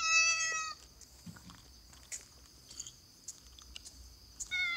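Stray kitten meowing twice, begging for milk: one long, high meow at the start and another beginning near the end. In the gap are faint scattered ticks and scuffs over a steady high tone.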